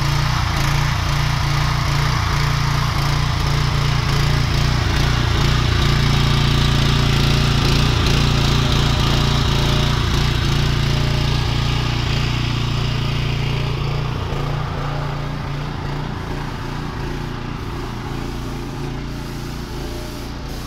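Small petrol engine of a Wagner HC 970G airless sprayer running steadily, driving the pump that sprays bitumen waterproofing. It grows gradually quieter over the last several seconds.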